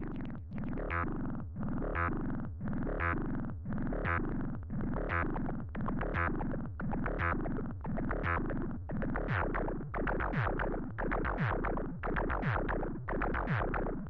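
A Moog DFAM analog percussion synthesizer plays its step sequence as a repeating pattern of pitched synth drum hits, about two a second. The tone shifts as its panel knobs are turned. About nine seconds in, the hits grow sharper and busier, with falling pitch sweeps.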